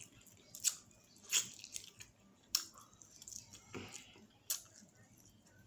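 Close-up mouth sounds of someone eating fried chicken wings and fries: wet chewing with a few sharp lip smacks, roughly one a second.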